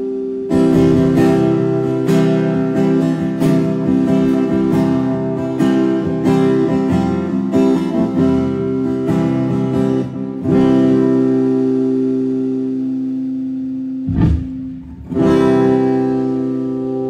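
Acoustic guitar being sound-checked through a stage PA: a run of strummed chords, then a chord left to ring, a short break with a low knock, and one more chord ringing out.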